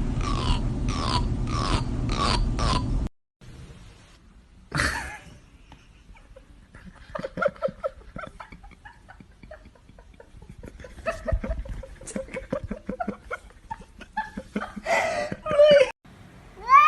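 Cats vocalizing in a run of short clips: a short call repeated about twice a second for the first three seconds, then softer scattered sounds and two louder calls near the end.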